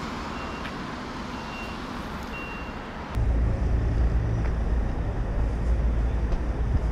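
City street traffic noise, with three short high beeps about a second apart. About three seconds in the sound changes abruptly to a louder, heavy low rumble.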